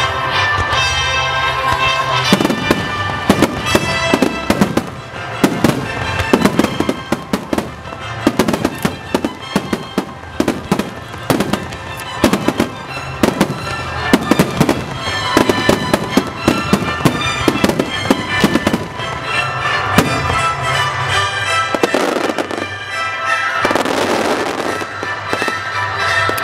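Aerial firework shells bursting in a rapid volley, a dense string of booms running from about two seconds in until about twenty seconds, over steady music. The bursts then stop and a rushing noise follows near the end.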